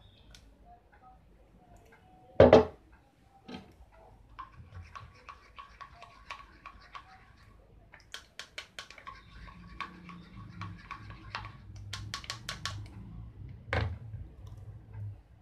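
Kitchen utensils knocking and clicking: a sharp knock about two and a half seconds in, runs of quick light taps and scrapes, and another knock near the end.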